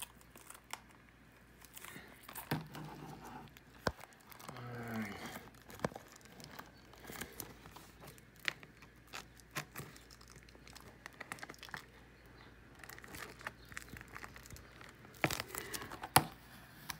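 Plastic packaging crinkling and tearing as it is worked open by hand, with scattered light clicks and taps of plastic disc cases being handled.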